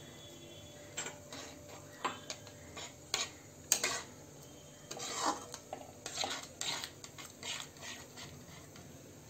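Slotted metal spatula scraping and clinking against an aluminium pan while stirring grated coconut into thickened milk. Irregular scrapes and taps, starting about a second in.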